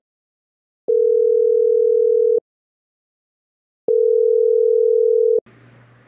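Telephone ringback tone heard by a caller waiting for an answer: two long, steady electronic rings, each about a second and a half, with a silent gap of the same length between them.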